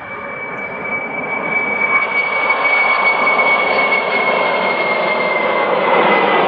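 Boeing 747-400 freighter's four jet engines at takeoff thrust as it climbs out: a rush of jet noise that grows louder over the first two seconds and then holds, with a high whine that slowly falls in pitch.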